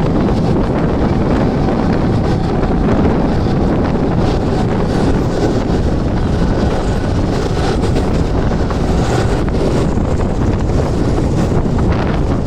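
Mumbai suburban local train (electric multiple unit) running at speed: a steady loud rush of wind across the microphone over the rumble of the carriage.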